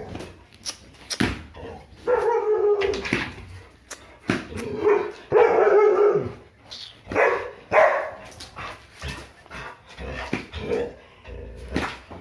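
A dog 'talking': a string of drawn-out, pitched whining calls of about a second each, broken up by shorter sharp vocal sounds. It is the vocal back-and-forth of a dog that argues back.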